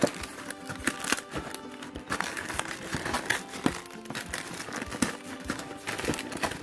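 Cookie box packaging being opened: wrapper crinkling and rustling in a dense run of quick crackles, with background music underneath.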